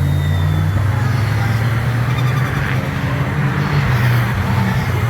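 GT3 race car engine running at low, fairly steady revs, a deep rumble with small shifts in pitch.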